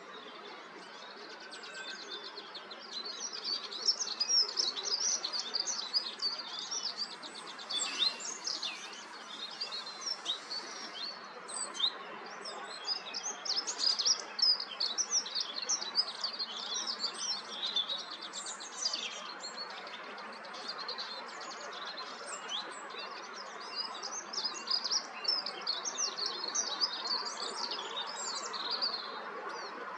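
Small songbird singing long runs of rapid, high, trilling notes in phrases several seconds long, separated by short pauses.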